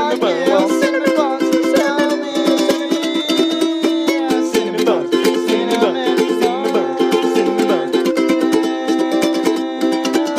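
Ukulele strummed in a steady, quick rhythm, its chords ringing on, in a small room.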